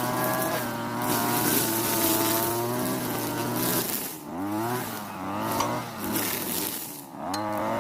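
Europa Hilt TB43 two-stroke brush cutter running at high revs, its engine note dipping and climbing back twice, about four and seven seconds in, as the throttle is eased off and opened again.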